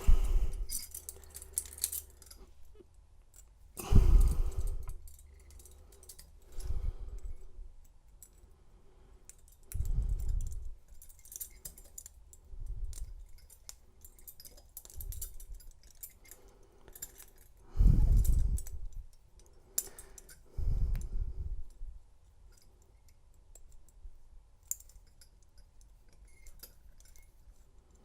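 Steel handcuffs being handled: light metallic clicks and jangling, with several dull knocks about 4, 10, 18 and 21 seconds in.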